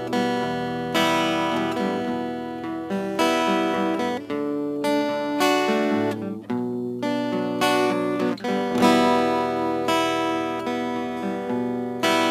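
Instrumental music: a plucked string instrument playing picked notes and strummed chords. This is the interlude between the sung lines of an Arabic devotional song.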